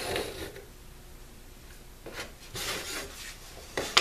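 Pencil scraping along the edge of a curved template as the curve is traced onto a wooden board, in a few short strokes, with the template rubbing and sliding over the wood. A short sharp knock just before the end as the template or pencil is set down on the board.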